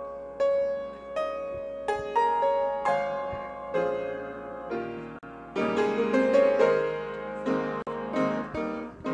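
Piano playing an instrumental introduction to a gospel song: struck chords and melody notes that ring and fade, growing fuller and louder about halfway through.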